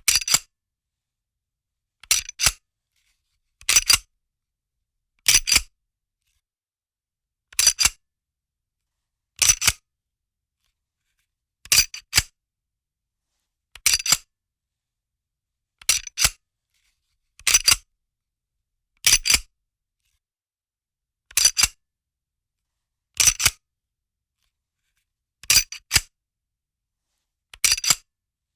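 Handgun slide being worked by hand over and over: each handling is a quick pair of sharp metallic clicks, repeated about every two seconds with silence between.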